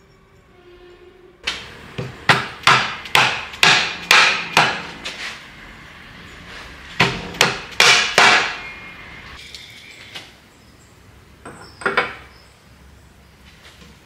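A hammer striking a steel press-fit part of a Bobcat skid steer's variable speed drive, tapping it onto its shaft. The sharp blows come about two a second, each with a short metallic ring. They fall in two runs with a pause between, then two more blows a few seconds later.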